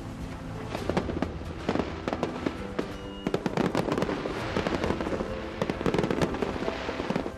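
Fireworks going off in rapid succession, a dense run of sharp bangs and crackles over music.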